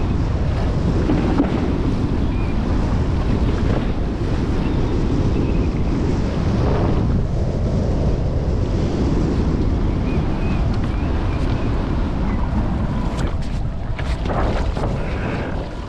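Strong wind buffeting the microphone over rushing water while a windfoil rig sails across choppy water. Near the end the wind noise eases a little and a few sharp clicks come through.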